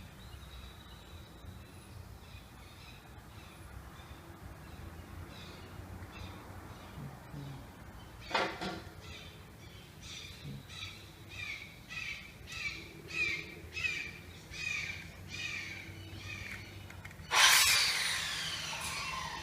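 A bird calling in a run of short, falling calls, one or two a second, over a low steady hum. A loud sudden sound with a long falling sweep comes near the end.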